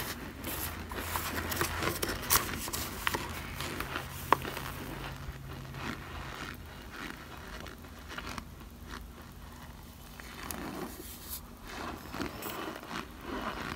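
Metal spoon scraping and crunching through chunks of cornstarch in a foil pan, with light crunches and squeaks. There are dense crackles and a couple of sharper clicks in the first half, fewer in the middle, and more crackling near the end.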